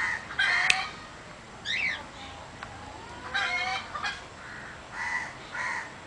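Chickens clucking in short, repeated calls, with a higher bird chirp about two seconds in.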